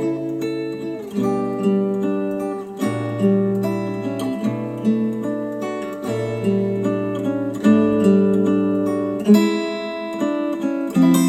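Acoustic guitar music with plucked notes and chords ringing out, played back through KEF Q350 bookshelf speakers driven by a hi-fi integrated amplifier.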